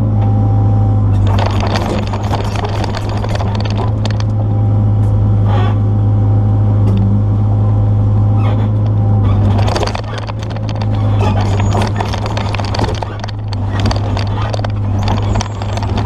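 Excavator diesel engine running steadily under load while it digs out tree stumps, with knocks and scraping from the bucket, roots and dirt. The engine drone drops back about ten seconds in.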